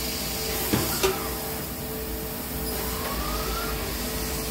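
Retrofitted fiber laser cutter at work: a steady hum with a hiss, two sharp knocks about a second in, and a rising motor whine around three seconds in as the cutting head's axis motors speed up. The motion is loud and stepping, which the operator puts down to the acceleration ramp being set too steep.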